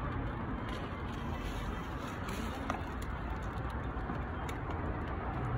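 Steady low background rumble and hiss, with a few faint clicks.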